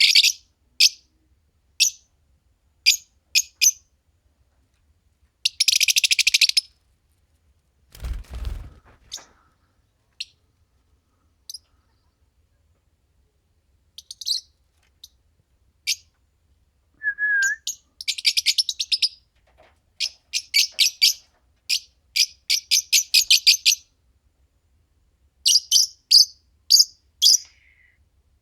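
A pair of Fischer's lovebirds chirping: sharp, high chirps, some single and some in fast rapid-fire trains, with one short whistled note about seventeen seconds in. A low thump about eight seconds in.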